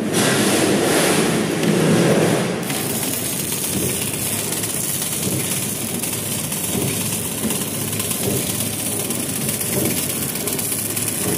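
Sachet horizontal packing machine running: conveyor and wrapping mechanism giving a steady mechanical clatter. It is louder for the first two and a half seconds, then settles to an even running level.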